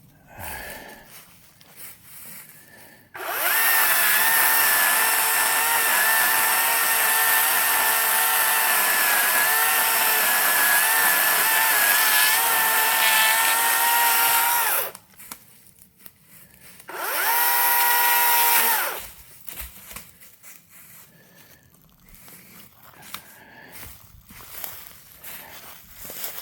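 EGO battery-powered chainsaw's electric motor running at full speed with a steady whine for about twelve seconds, then a second short burst of about two seconds that spins up and winds down. Between the runs it is quiet apart from a few light clicks.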